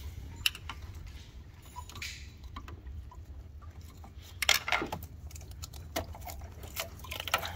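Scattered clicks and light metallic clinks of a coolant hose and its clip being worked loose from a Toyota Prius V inverter, with a quick cluster of clicks about four and a half seconds in, over a steady low hum.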